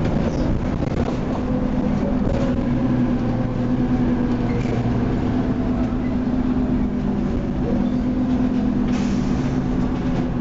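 Leyland Lynx Mk2 bus with a Cummins L10 diesel engine running steadily under way, heard from inside the passenger saloon, with a few brief body rattles.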